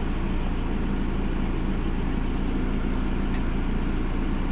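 Delivery van's engine idling steadily, an even low hum.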